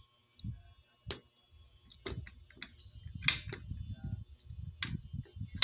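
Fingers sorting cooked chicken feet on a ceramic plate: the bones tap and click against the plate about six times, over a low, uneven rumble of handling knocks.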